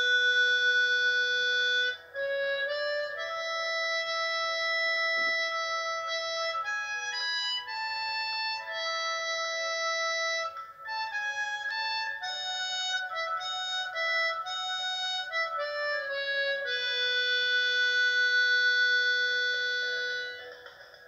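Harmonica playing a slow melody of long held notes that step up and down, with brief breaks for breath between phrases.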